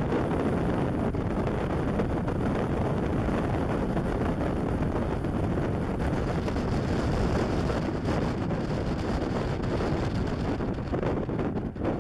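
Steady wind noise on the camera's microphone from a wind of about 40 km/h, heaviest at the low end, with a brief lull near the end.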